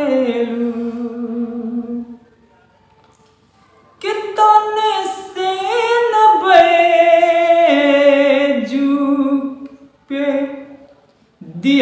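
A man singing a Bhojpuri devotional biraha song to the mother goddess, unaccompanied. He holds the last word of a line for about two seconds and pauses for a moment. He then sings a long drawn-out phrase with sliding, ornamented pitch, and a short phrase before the next line starts near the end.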